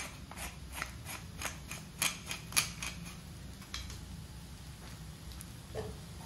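Kimchi fried rice crackling in a hot wok: irregular sharp pops, about three a second for the first three seconds, then only a few.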